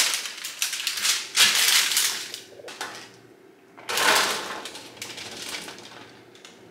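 Cooked chickpeas rattling as they are tipped from a plastic colander onto a parchment-lined metal baking tray, with parchment paper rustling. It comes in two spells of many small quick hits, with a short quiet pause between them.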